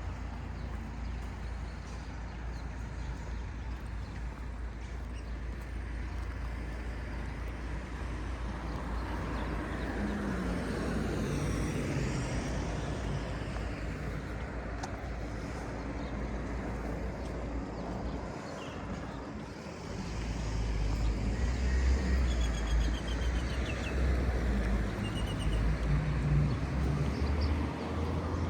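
Street traffic ambience: cars passing with a steady low rumble, growing louder about two-thirds of the way through as a vehicle comes close.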